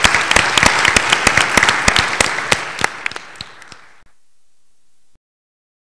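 Audience applauding, the claps thinning and fading before the sound cuts off abruptly about four seconds in.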